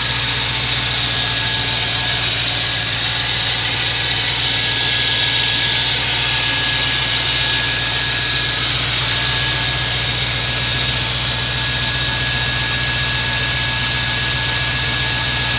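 BMW M60B30 3.0-litre V8 idling evenly once warmed past its rough cold-start phase, with no knocking. A thin, steady high whine runs over the engine and breaks off briefly twice.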